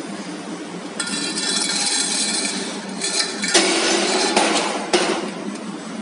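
Steel round tube (3 mm carbon steel) being handled on a metal machine bed: a sustained metallic scrape starting about a second in, then several loud metal clanks and knocks.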